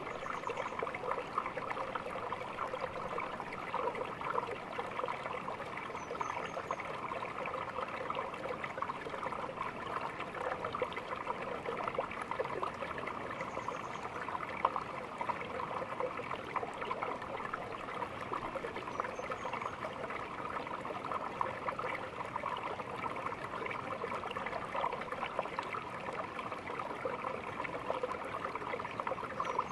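A small stream running and trickling steadily, a continuous even babble of water, with a faint high chirp every several seconds.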